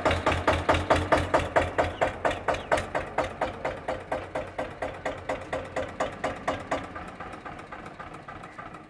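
Eicher 242 tractor's diesel engine running at idle, chugging in even, strong beats about three a second that grow gradually quieter and blur into a softer, steadier run after about seven seconds.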